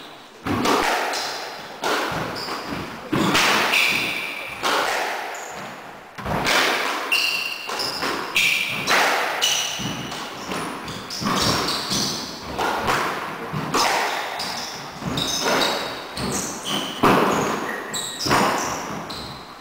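Squash rally: the ball cracks off rackets and walls over and over, roughly once a second, each hit ringing briefly in the court. Short squeaks from shoes on the wooden floor come in between.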